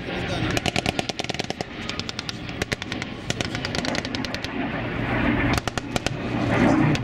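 Automatic weapons firing in rapid bursts, the shots close together, with a short lull about four and a half seconds in before firing resumes.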